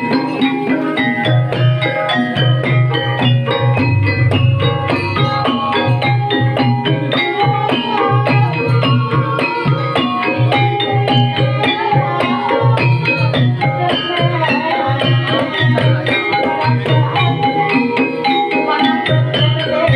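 Banyumasan gamelan music accompanying ebeg dancing: a hand drum keeps a steady repeating pattern under many quick, struck, tuned percussion notes.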